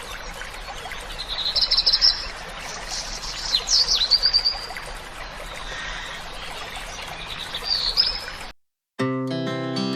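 Songbirds singing over a steady rush of running water, with short high trills and quick down-slurred whistles about 1.5, 4 and 8 seconds in. The sound cuts off abruptly near the end, and a guitar-backed song starts just after.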